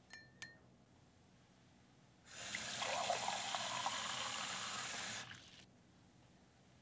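Kitchen tap running for about three seconds, water filling a drinking glass. Just before it, two short ringing clinks of glassware.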